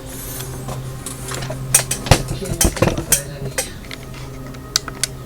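Sharp clicks and clatter of small hard plastic and metal parts being handled on a digital deadbolt lock, with a quick run of knocks in the middle and two lighter clicks near the end.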